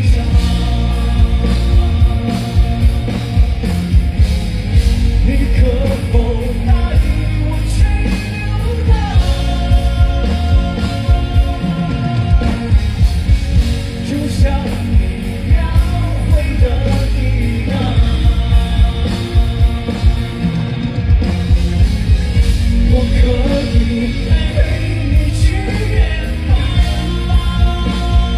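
A live pop-rock band with singing, heavy bass and a steady drum beat, recorded from within the audience.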